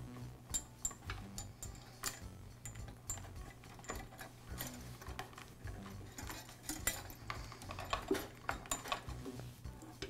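Irregular light clicks and taps of the power cord's wires and insulated wire connectors being handled and fed by hand through the cord fitting into a drain auger's motor box.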